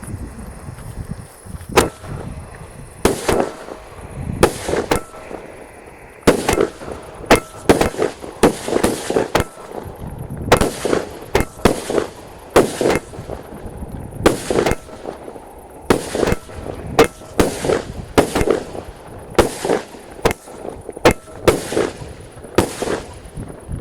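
Kasjopeja firework cake, after 24 hours frozen, firing shot after shot: sharp bangs with a short crackling ring after each. They come irregularly, about one to two a second, starting about two seconds in.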